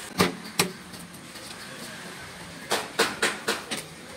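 Heavy fish-cutting knife chopping into a mahi mahi on a wooden log block: two sharp blows just after the start, then a quick run of about five more near the end.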